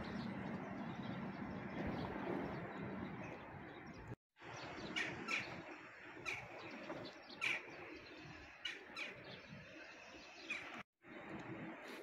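Small birds chirping now and then, short high calls mostly in the second half, over a steady hum of distant city noise. The sound cuts out completely for a moment twice.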